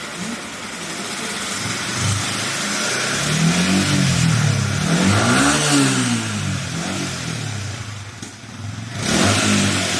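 Yamaha MT-15's single-cylinder engine running and being revved: the pitch climbs and falls several times in the middle, drops back briefly near the end, then picks up again.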